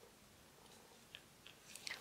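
Near silence: room tone with a few faint, short clicks, more of them near the end.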